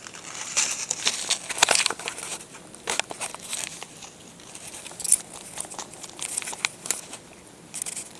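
Paper bag crinkling and rustling in irregular bursts as pet rats rummage inside it for treats.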